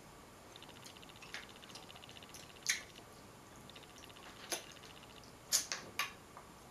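Crab legs being cracked and picked apart by hand: a few sharp snaps of shell, three of them close together near the end, with soft wet squishing from butter-coated fingers and meat.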